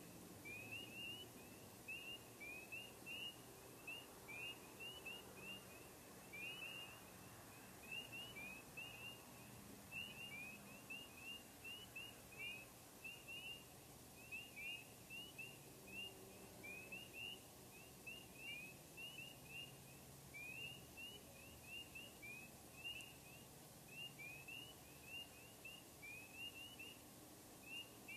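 Faint chorus of spring peepers: many short rising peeps, several a second, overlapping without a break, over a faint low hum.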